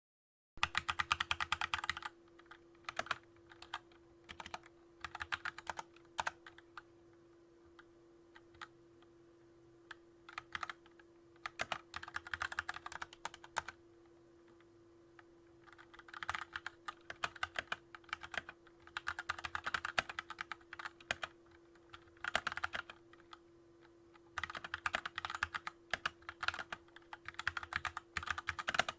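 Typing on a Keychron K2 mechanical keyboard: runs of rapid key clicks lasting a second or few, broken by short pauses with a few single keystrokes in between.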